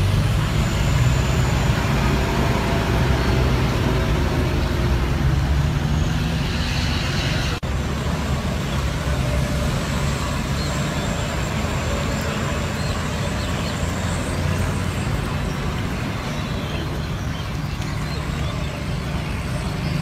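Steady outdoor background noise with a heavy low rumble, broken by a brief dropout about seven and a half seconds in.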